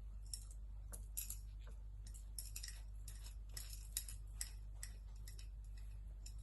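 Butter knife spreading butter on a slice of bread: faint, irregular clicks and light scrapes of the knife against the bread and plate, over a steady low hum.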